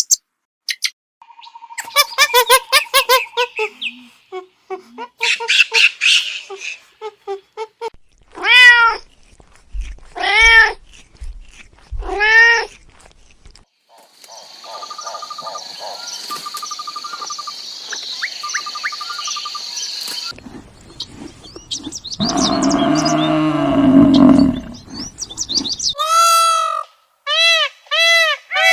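A run of different animal calls, one after another, among them cat meows: short arched cries that rise and fall in pitch. Later come a steady high hiss and quick repeated cries near the end.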